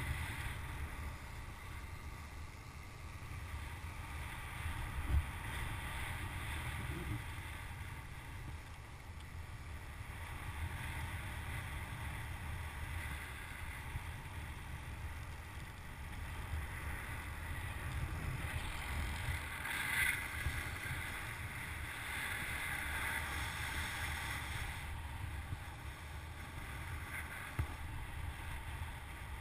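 Wind rushing over the microphone of a paraglider in flight: a steady rush with a low rumble, briefly louder about twenty seconds in.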